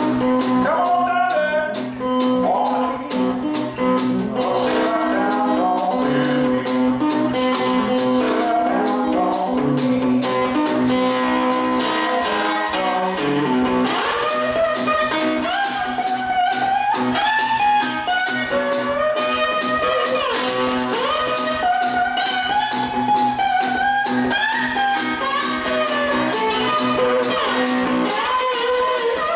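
Instrumental blues played on guitar: a steady low droning bass note under a melody whose notes bend and glide up and down in pitch.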